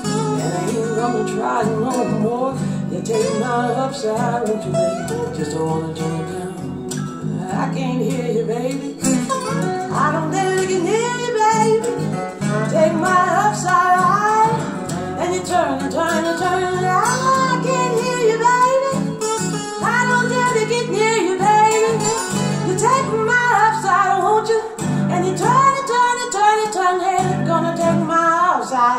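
A song with acoustic guitar and a female voice, played back through a pair of small Dantax New Magic bookshelf speakers.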